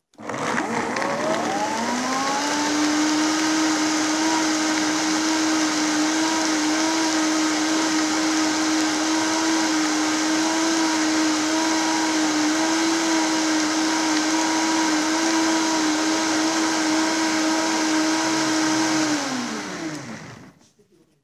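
High-powered countertop blender running on soaked nuts and water, blending them into nut milk. The motor spins up over the first couple of seconds, runs at a steady pitch, then winds down and stops near the end.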